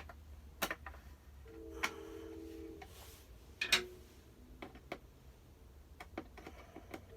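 Scattered clicks and taps of plastic parts and batteries being handled while batteries go into a battery-powered cat toy, with a brief steady hum about a second and a half in.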